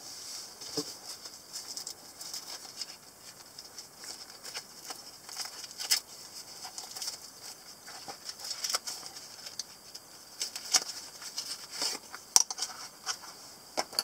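A black nylon knife pouch handled and opened by hand: irregular rustling and scraping of the fabric with scattered small clicks. The loudest is a single sharp click near the end.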